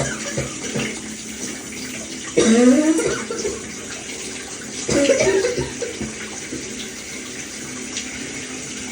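Shower water running steadily, with two bouts of wheezy coughing, about two and a half and five seconds in, each carrying a pitched, bending wheeze.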